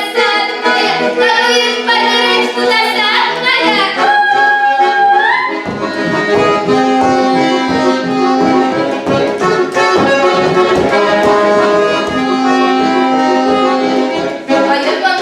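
Instrumental break of a folk-style song led by accordion (garmoshka), with held chords over accompaniment; a steady beat comes in about halfway through.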